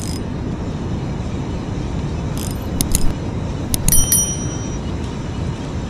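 Steady rush of wind and sea on the microphone, with a few sharp clicks about two and a half to three seconds in and a bright bell-like chime about four seconds in from a subscribe-button animation sound effect.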